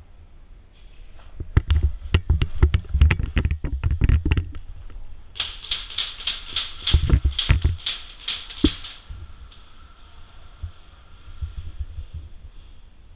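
Airsoft gunfire in two rapid strings of shots. The first, starting about a second and a half in, is sharp cracks mixed with heavy thuds, about five a second for three seconds. The second, from about five to nine seconds, is brighter, sharper cracks at about four a second. Scattered faint knocks follow.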